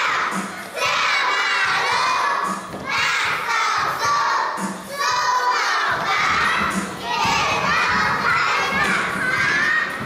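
A group of young children chanting a Hakka nursery rhyme in unison, shouting it out in phrases of about two seconds each.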